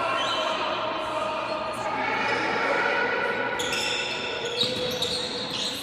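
Handball court sounds: the ball bouncing and sneakers squeaking on the court floor, with short high squeaks from about halfway through. Under them runs the steady background noise of the hall.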